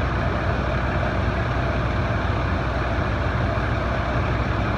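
Fire ladder truck's diesel engine running steadily with a low, even drone, kept running to power the extended aerial ladder.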